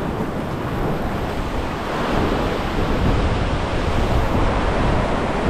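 Ocean swell surging and washing over the rocks at the water's edge, with wind rumbling on the microphone; the wash swells louder about two seconds in.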